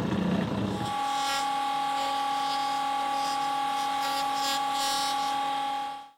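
Small electric power tool running on thin pine, shaping a wooden ring. It changes about a second in to a steady high whine with scratchy grinding over it, then cuts off suddenly near the end.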